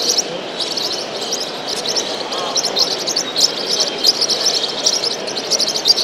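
Many caged show birds chirping at once, a dense, unbroken stream of short high chirps, over the murmur of a crowd of people talking.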